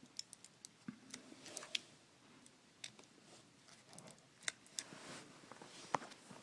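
Faint, irregular small clicks and ticks of fingers working at a laptop display's ribbon cable connector, with one sharper click near the end.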